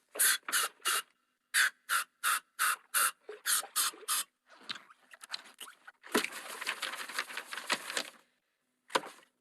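Cartoon coughing fit by Squidward: a run of short coughs, about three a second, for the first four seconds. A longer, denser coughing stretch follows about six seconds in, and one more cough comes near the end.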